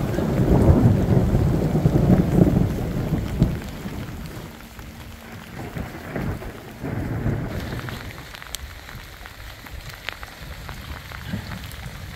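Rain falling in a thunderstorm, with a heavy low rumble through the first three or four seconds that then dies away, leaving steady rain with scattered drop ticks.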